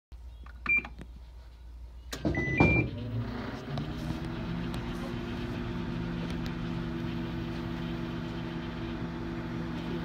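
Microwave oven beeping as its start button is pressed: one short beep, then clicks and two more beeps about two seconds in. The oven then starts heating and runs with a steady hum.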